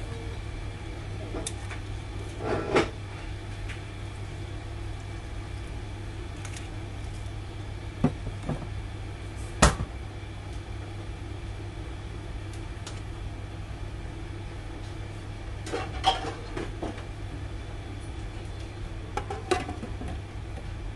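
A steady low hum with a few scattered knocks and clinks of kitchenware, the sharpest about halfway through; near the end a glass lid clinks down onto a stainless steel frying pan.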